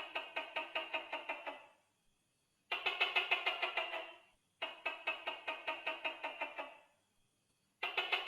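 Gecko calling in runs of rapid clicking chirps, about ten a second. Each run lasts one and a half to two seconds, fades off, and is followed by a short pause, and the runs repeat about every two and a half seconds.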